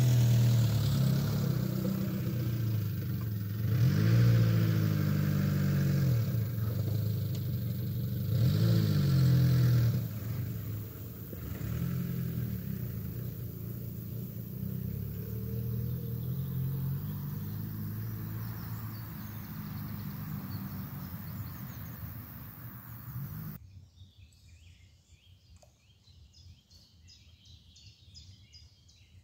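Suzuki Samurai 4x4 driving off across a grassy field: the engine revs up twice as it pulls away, then runs steadier and fades into the distance. Near the end, birds chirp outdoors.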